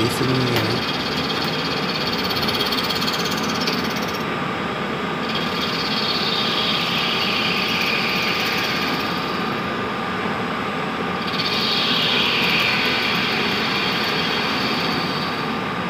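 HMT Stallion 100 SU CNC lathe running an automatic cycle, the spindle turning a workpiece while the tool cuts. Steady machine noise with a faint steady whine, and a higher hissing sound that comes and goes three times, breaking off about 4 and 10 seconds in.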